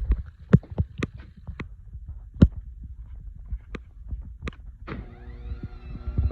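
Bridgeport Series II 4 HP milling machine: its motor hum cuts off, then a string of about ten sharp clicks and knocks follows over five seconds. Near the end the motor starts again, its whine rising as it spins up.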